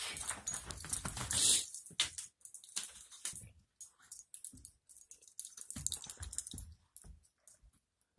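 An Aussie mix dog playing with a stuffed teddy bear, mouthing and tugging at it in short scuffling bursts with small clicks. A louder rustle fills the first second and a half.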